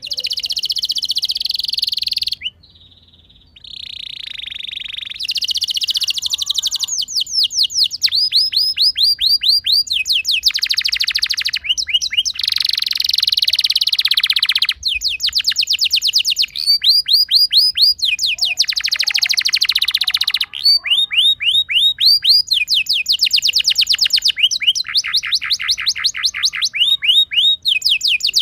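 Domestic canary singing a long, rolling song: phrase after phrase of fast repeated notes and trills, with a brief pause about two and a half seconds in.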